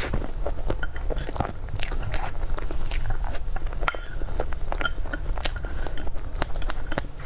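Close-miked eating sounds: biting and chewing with frequent wet mouth clicks and smacks, irregular and sharp, over a low steady hum.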